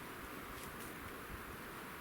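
Steady wind noise with a light rustle, an even hiss with no distinct events.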